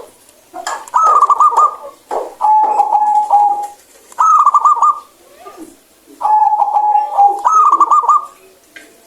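Zebra dove (perkutut) singing loudly in clear phrases of rapid cooing notes, about four phrases in all. Each phrase alternates a steady held note with a quick wavering trill.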